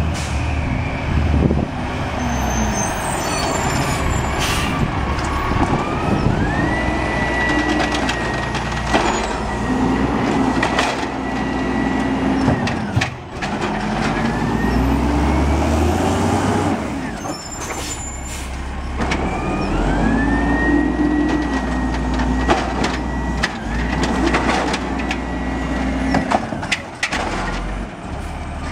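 Automated side-loader garbage truck working: its diesel engine runs and revs while the hydraulic arm operates, with a whine that rises and then holds high, heard twice. Sharp knocks and bangs come from carts being slammed and dumped, along with air-brake hisses.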